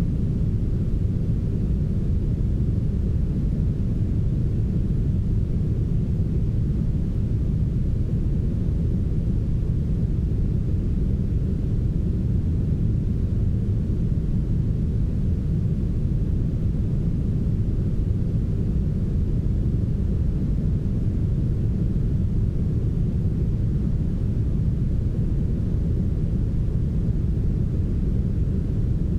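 Steady, smoothed synthetic brown noise: an even, deep hiss with nearly all its energy in the low end and little above the midrange, unchanging throughout.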